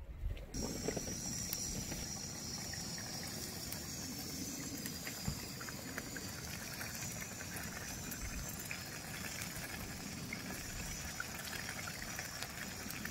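Water trickling or pouring steadily, a fine crackling hiss that starts abruptly about half a second in.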